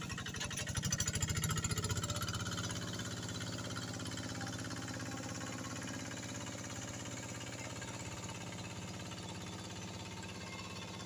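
Quick G1000 two-wheel hand tractor's single-cylinder diesel engine chugging steadily under load as it drags a harrow through flooded rice-paddy mud to level it. It is loudest a second or two in, then slowly grows fainter as the tractor moves away.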